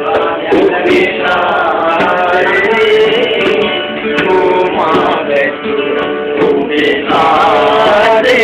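Men singing to a strummed guitar, with many short sharp taps scattered through the song.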